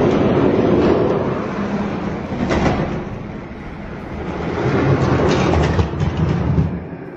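Die-cast Spin Master monster trucks rolling down an orange plastic race track, a loud rumble of small wheels on the plastic with a few clacks, swelling twice and dying away about six and a half seconds in as the trucks come to rest.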